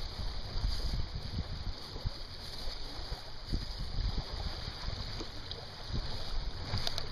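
Gusty wind buffeting the microphone in an uneven low rumble, over the wash of small waves lapping against a stony, leaf-strewn lakeshore.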